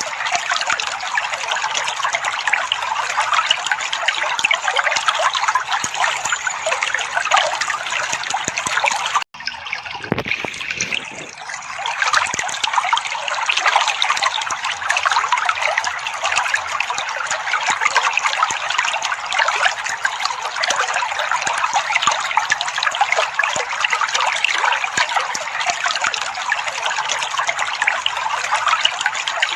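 Steady trickling, splashing water, played as a therapy sound to get a caged bird singing. It cuts out for an instant about nine seconds in, comes back softer, and builds up again over the next couple of seconds.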